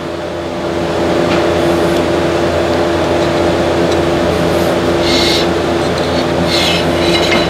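A steady machine hum, one pitched drone with a low rumble under it, with a few short high-pitched scrapes in the second half.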